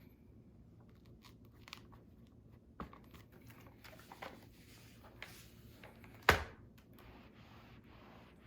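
Handling noises: scattered light clicks and crinkling, with one sharp, loud click about six seconds in.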